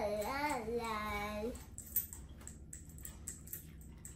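A drawn-out, wavering vocal "ohh" for the first second and a half, then faint scattered clicks and wet mouth sounds of people chewing food.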